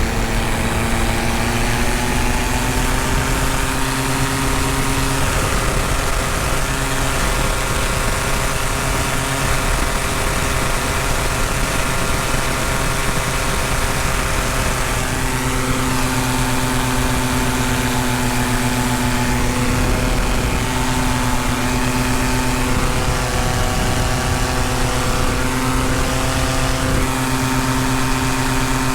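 Paramotor engine and propeller running steadily in flight, its pitch shifting slightly a couple of times with small throttle changes.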